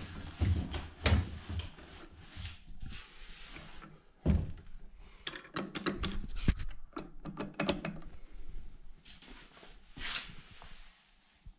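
Irregular knocks, clicks and scraping of objects being handled and set down, with the loudest knocks about a second in, just past four seconds and around six and a half seconds; it dies away near the end.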